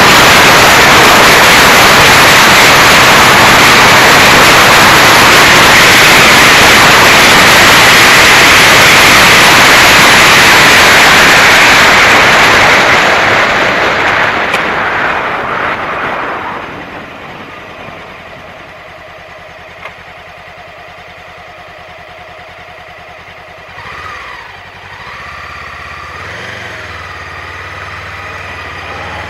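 Heavy wind noise on the microphone of a camera mounted on a moving motorcycle, very loud for the first dozen seconds, then fading away to leave the 2016 Honda CB500X's parallel-twin engine running at speed. The engine note rises and falls briefly about two-thirds of the way through.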